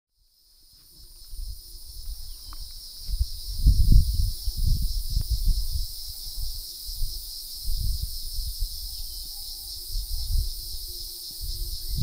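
Cicadas droning in a steady, even high whine that fades in over the first second. Irregular low rumbling gusts run underneath.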